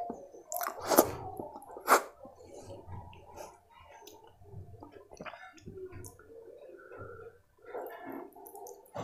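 Close-miked chewing and wet mouth sounds of eating khichdi and kadhi, with two sharp loud clicks about one and two seconds in. Near the end, fingers squish through the soft rice and kadhi in the tray.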